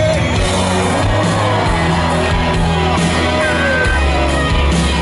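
Live pop-rock band playing an instrumental stretch of the song, with bass, drums and electric guitar, and audience shouts and whoops over it.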